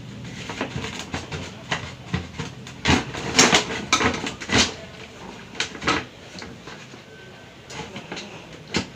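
Irregular knocks, clatters and scrapes of a mixer grinder's motor being set and seated into its body, the busiest and loudest stretch about three to four and a half seconds in.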